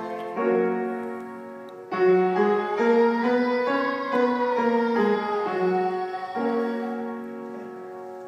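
Upright piano playing a slow run of sustained chords, the last one held and fading away near the end.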